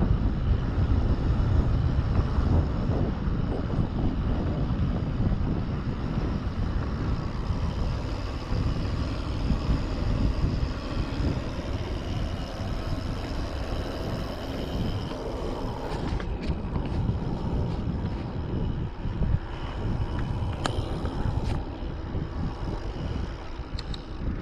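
Wind buffeting the microphone and tyre rumble on tarmac from a mountain bike coasting downhill on a paved road, heaviest in the first several seconds. A few light clicks come in the second half.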